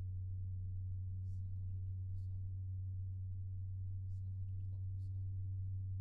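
Arctic P120 PWM 120 mm PC fan running at a steady speed, recorded a centimetre from the fan: a steady low hum with fainter higher overtones and no change in speed.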